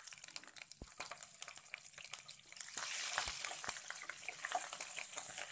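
Halved green chillies and cumin seeds sizzling and crackling in hot oil in a kadhai, stirred with a spatula; the sizzle grows louder about halfway through.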